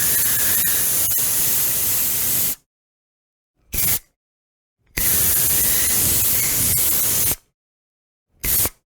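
Aerosol spray can hissing in bursts. A long spray ends about two and a half seconds in, then comes a short puff, another long spray of about two and a half seconds, and a second short puff near the end.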